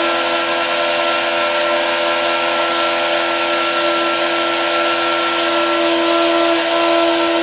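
12-volt electric water pump running steadily off a battery charger at 40 amps, its motor hum under the even hiss of water spraying from a cone spray nozzle.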